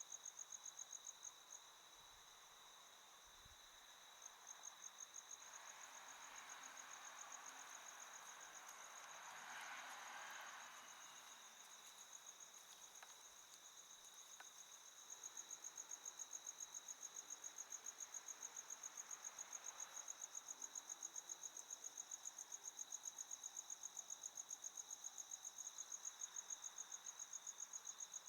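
Crickets chirping in a faint night chorus: a high, regular pulsing chirp over a steadier trill a little lower in pitch. A soft rushing noise swells and fades about a quarter of the way in.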